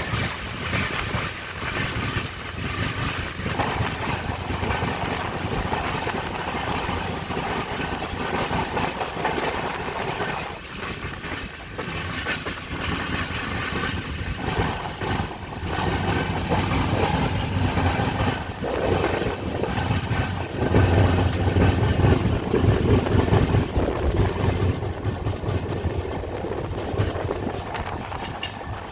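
Passenger train running, heard from inside the coach: a steady rumble of the wheels on the rails, growing louder about two-thirds of the way through.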